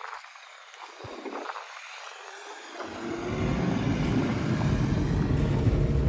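Wind buffeting the microphone: a loud, uneven low rumble that starts about three seconds in, over a faint hiss.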